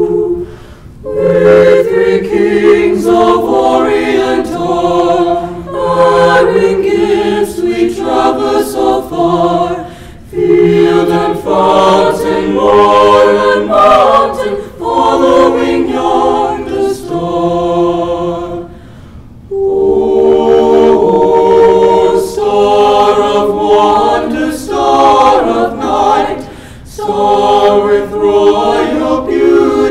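Mixed-voice high school choir singing a Christmas carol a cappella, in sustained chords broken into phrases with short pauses for breath between them.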